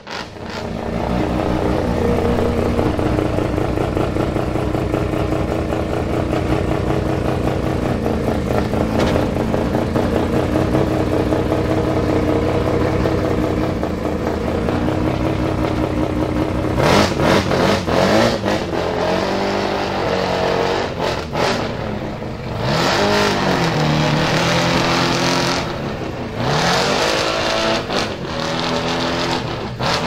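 Twin-turbo four-rotor rotary engine in a Nissan Silvia S15 idling steadily, then blipped several times from about halfway, each blip a quick rise and fall in revs.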